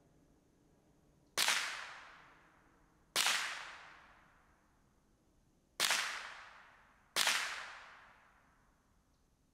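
Four shots from a Ruger 10/22 semi-automatic .22 rimfire rifle, a second or two apart, each trailing off in a short echo.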